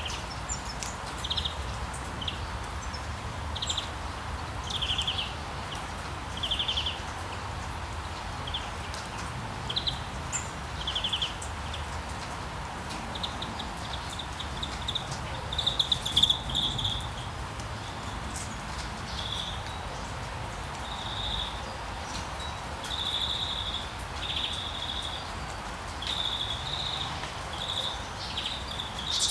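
Small birds giving short, rapidly trilled chirps again and again, more often in the second half, over a steady hiss of rain.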